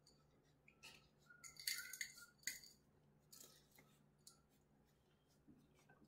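Faint, sharp snips and clicks of small pet nail clippers trimming a puppy's claws, several in a cluster with the loudest about two seconds in and a few more about three and a half seconds in.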